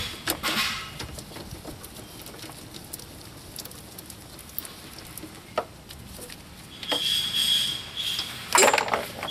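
Ratchet wrench clicking as it turns out a condenser mounting bolt, then scraping and handling noise among the parts. Near the end comes a short, sharp metallic clatter, the loosened bolt dropping into the front end.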